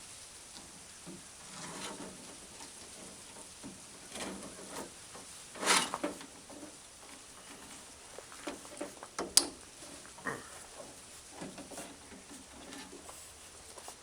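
Hand work on a window channel and its clips inside a truck door: scattered rubbing and scraping with several short clicks and knocks, the loudest a knock a little before halfway and a sharp click about two-thirds of the way in.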